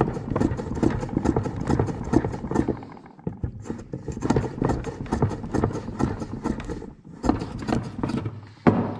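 Small block plane shaving a node on a bamboo rod strip in quick short strokes, about five a second, in three runs with brief pauses. The node is being planed flat so the strip will lie flat in the planing form.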